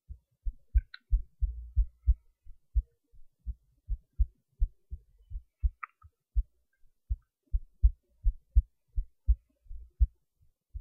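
Heartbeat recording: a steady lub-dub rhythm of short, low thumps, about three a second. Two brief higher clicks come through, one about a second in and one near the middle.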